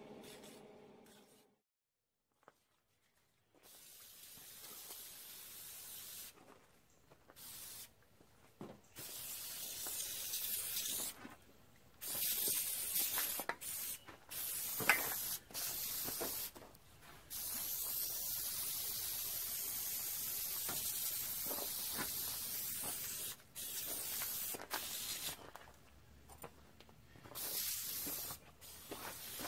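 Aerosol spray can hissing in repeated bursts, some short and some held for several seconds.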